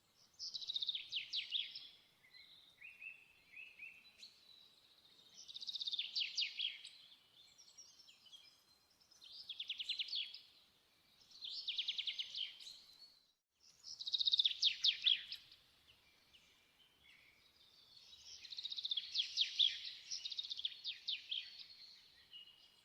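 A small songbird singing: about six short phrases of rapid, high trilled notes, a few seconds apart.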